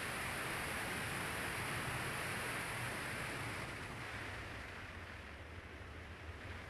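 Ford Fiesta ST driving on a winding road: steady road and tyre noise over a low engine drone. The hiss eases off about four seconds in.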